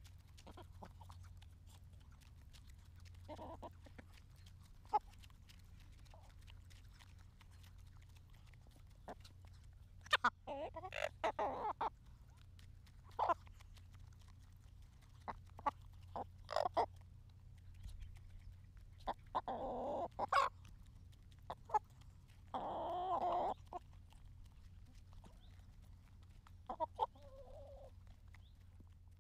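Hens pecking grain from an open hand: scattered sharp ticks of beaks striking the palm and seed, with short clucking calls from the hens about ten, twenty and twenty-three seconds in, over a low steady hum.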